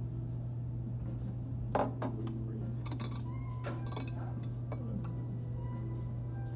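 Dishes and cutlery clinking at a dining table: a handful of sharp clinks of utensils against plates and bowls, the loudest about two seconds in and a cluster around four seconds, some ringing briefly, over a steady low background hum.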